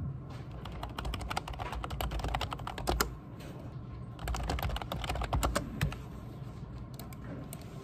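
Fast typing on a computer keyboard in bursts of key clicks, with some harder strikes on the Enter key; the loudest strike comes about three seconds in, followed by a brief pause before the typing resumes.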